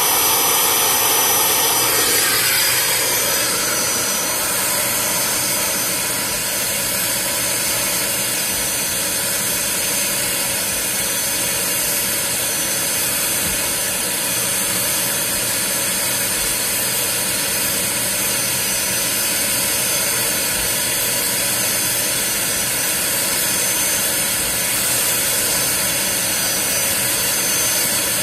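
Bissell Spot Clean portable carpet extractor running steadily with a loud suction whoosh, its sound shifting about two seconds in.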